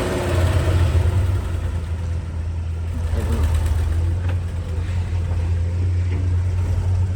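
Excavator engine running steadily with a low drone.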